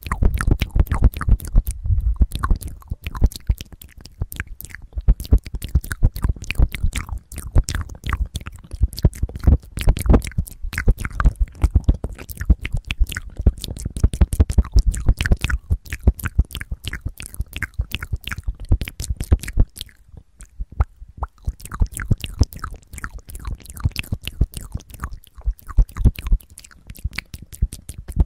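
Close-miked wet mouth sounds: rapid lip smacks, tongue clicks and licking right on the microphone capsules of a handheld recorder. Dull low thuds from mouth contact with the mic run through the first half, and there is a brief lull about twenty seconds in.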